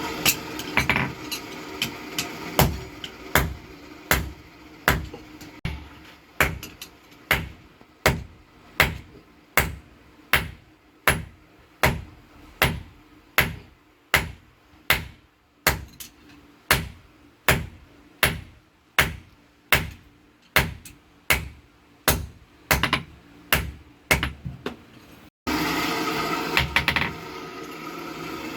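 Blacksmith's hand hammer striking steel rebar on an anvil in a steady rhythm, a little over one ringing blow a second, as the rod is forged into tongs. A steady rushing noise sits under the first second, and after a sudden break near the end the hammering gives way to that noise.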